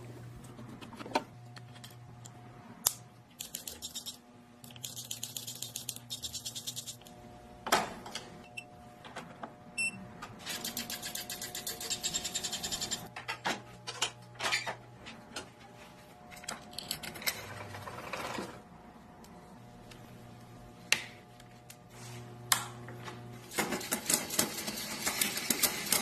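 Bicycle drivetrain turning in a workstand while a SRAM wireless electronic rear derailleur shifts. Stretches of rapid, even ticking come from the rear hub and chain running over the cassette, with sharp single clicks in between.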